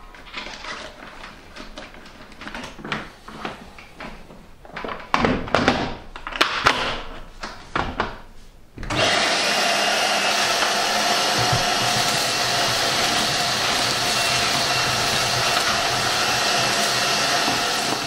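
Rustling and clicking as a filter bag is fitted into a Titan TTB430VAC 30-litre 1400 W wet and dry vacuum. About nine seconds in, its motor switches on abruptly and runs steadily, with a whine over the rush of air.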